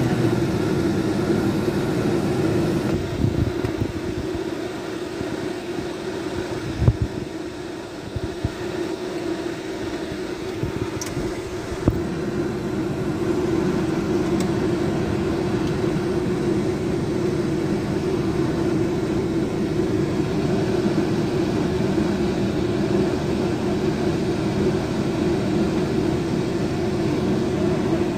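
Steady hum of a Chevrolet Optra running, heard inside the cabin, with two sharp knocks about seven and twelve seconds in.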